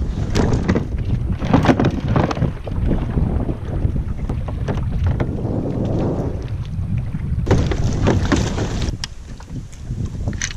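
Wind buffeting the camera microphone, with knocks from a plastic fishing kayak and its gear being handled and water splashing as the kayak is slid into the shallows and waded alongside; the splashing is loudest from about seven and a half to nine seconds in.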